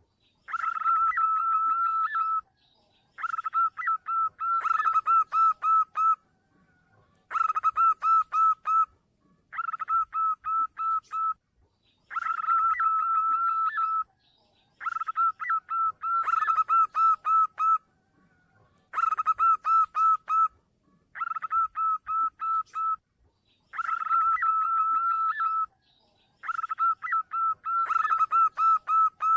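Zebra dove (perkutut) calling: phrases of rapid, evenly pitched cooing notes, about two seconds each, repeated about ten times with short pauses between them. These are the male's song (manggung), played as a lure call.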